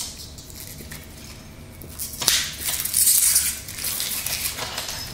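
Plastic wrapper of a beef snack stick crinkling and tearing as it is pulled open by hand, loudest a little over two seconds in.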